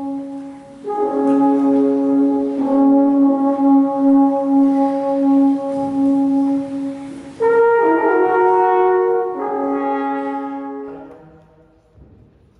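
Several horns playing slow, long-held chords that change a few times, then fade out near the end.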